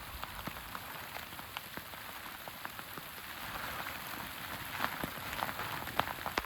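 Rain falling, a steady hiss with many sharp ticks of single drops landing.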